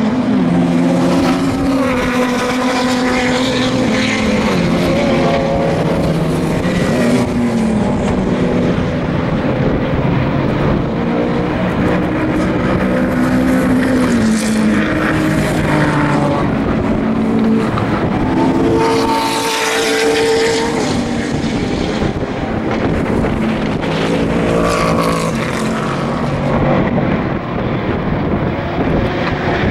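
Racing sports and GT cars running hard on track, several engines revving and changing gear one after another. One car passes closer and louder about two-thirds of the way through.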